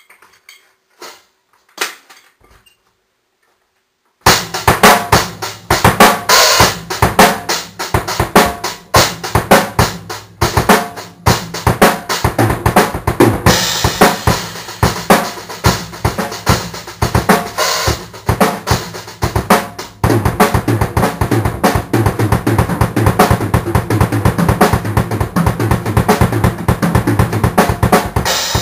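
One-handed drum solo on a CB acoustic drum kit: snare, toms and bass drum in fast, busy patterns with rolls. It starts about four seconds in, after a few faint clicks.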